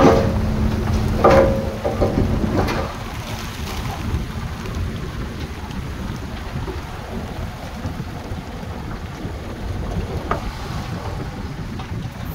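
Heavy earthmoving machinery running: a dense, low diesel rumble, with three sharp metallic clanks in the first three seconds.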